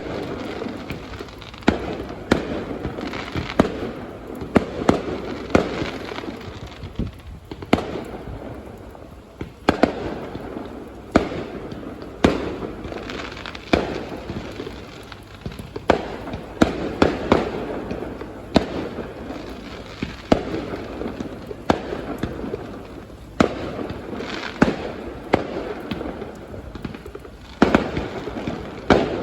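Fireworks display: a string of sharp bangs at irregular intervals, each followed by crackling.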